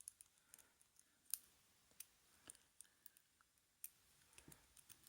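Faint, irregular metallic clicks and scrapes from a homemade City Rake lock pick, cut from a hacksaw blade, being raked across the pins of a small lock while a tension tool holds it under turning pressure. The lock has not yet opened.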